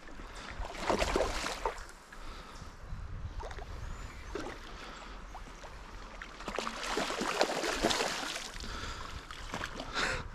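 A hooked jack steelhead splashing and thrashing at the surface of a shallow creek, in bursts about a second in and again from about six to eight and a half seconds, over the steady sound of the flowing creek.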